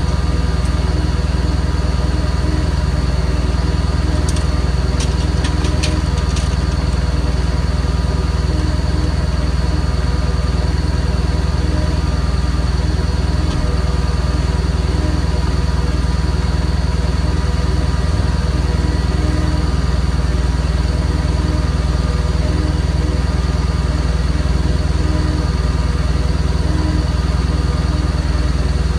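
Tow truck's engine idling steadily, heard from inside the cab. A few light clicks come about four to six seconds in.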